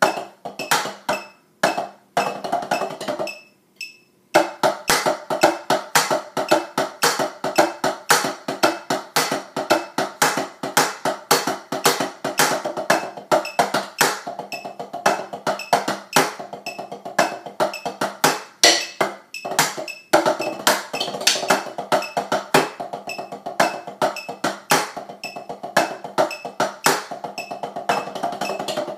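Drumsticks playing a marching drumline cadence on a tenor-drum practice pad set: fast, dense strings of dry taps moving across the pads. There is a pause of about a second about four seconds in, and then steady playing until the end.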